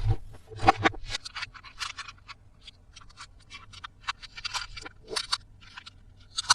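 Toy packaging being handled and opened: a run of short, irregular crinkling, scratching and scraping noises, with a few louder knocks near the start and just at the end.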